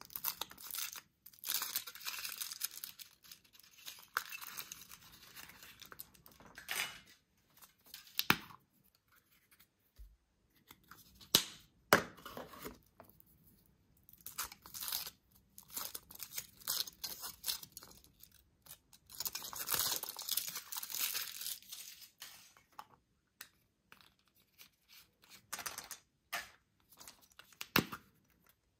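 Thin foil wrappers being torn and crinkled off Kinder Surprise chocolate eggs, in stretches of rustling broken by several sharp clicks and snaps.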